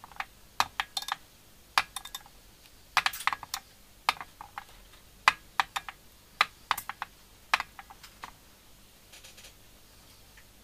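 Irregular sharp clicks and taps, often several in quick succession, from hands working the thread and tools at a fly-tying vise while a thread body is wound on a hook; they die away near the end.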